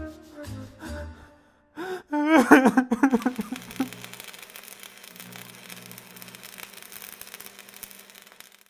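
A man's voice sobbing and crying out in short outbursts, the loudest and longest about two seconds in, wavering and falling in pitch, then a faint steady hiss with a low hum.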